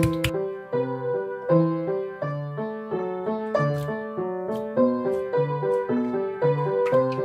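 Solo piano playing a sonatina: a melody over a steady, repeating left-hand accompaniment, with a few sharp clicks at the start and near the end.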